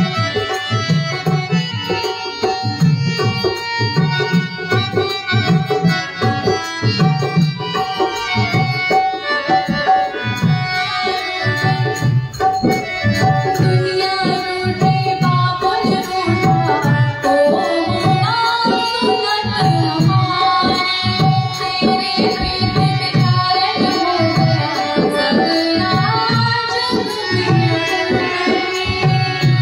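Indian devotional music in which a tabla plays a steady rhythm under a melodic line.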